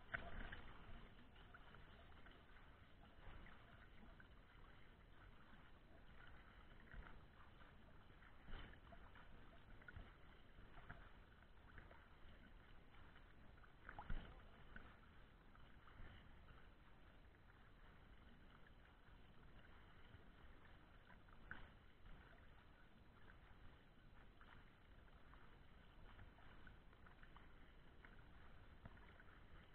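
Faint lake water sloshing and splashing at the surface, stirred by a swimmer's front-crawl strokes, with a few louder splashes, the loudest about halfway through.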